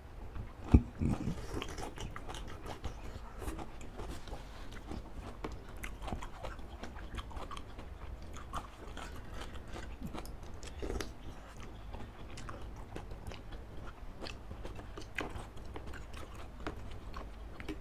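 Close-miked eating of spicy laksa noodles with baby octopus and greens: chewing, biting and slurping, with scattered soft clicks of forks and a spoon in the dish. A sharp click and a short slurp stand out about a second in.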